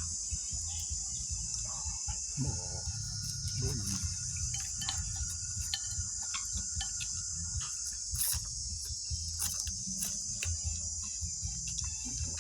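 Steady high-pitched chorus of insects, with a low hum underneath and a few scattered light clicks.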